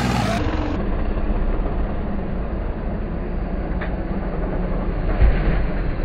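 Stunt tractor's diesel engine running hard as the tractor wheelies and spins in loose sand, a steady low drone, with a single thump about five seconds in.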